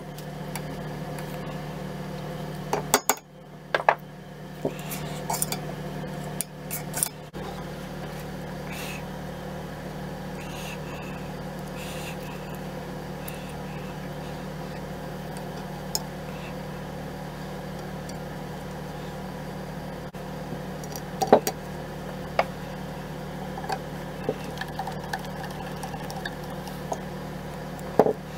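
Steel parts of a K98k Mauser rifle clicking and clinking now and then as they are handled and fitted together during reassembly, over a steady low hum. A cluster of clinks comes a few seconds in, and the sharpest clicks come about two-thirds of the way through and near the end.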